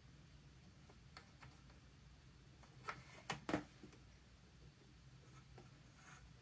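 Faint handling clicks and ticks from fingers threading the needle and presser-foot area of a sewing machine: a few soft ticks early, then three sharper clicks close together about three seconds in, over near silence.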